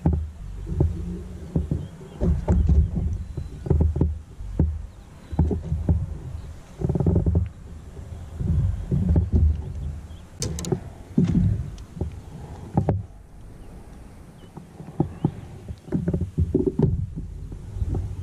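Small waves slapping against the hull of a fishing kayak, heard as irregular low thumps every second or so. There are a couple of sharp clicks about ten seconds in.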